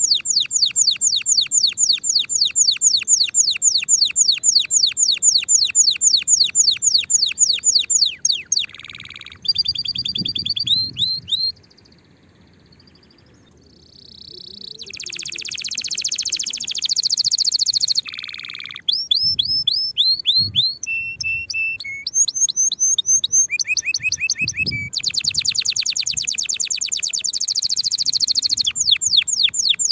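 Domestic canary singing: long runs of fast, evenly repeated falling notes, changing to other trills and a few held whistled notes, with a brief pause about twelve seconds in.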